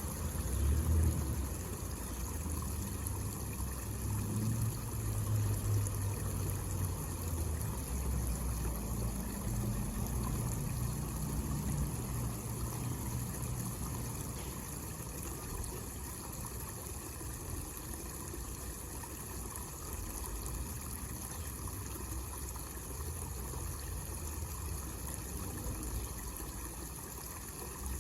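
Small homemade waterfall fountain: water trickling and splashing steadily into a basin, with a low rumble underneath that swells and fades.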